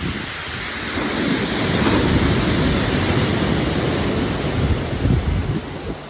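Sea waves washing in as a steady rush of surf, swelling about a second in, with wind rumbling on the microphone.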